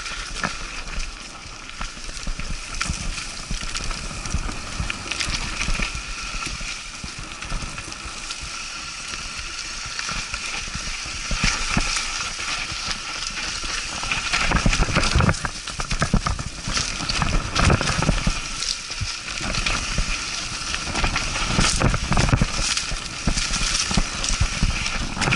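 Mountain bike descending a dirt and leaf-covered trail: the tyres crunch over the ground and the bike rattles and knocks over bumps. The clatter gets louder and busier about halfway through.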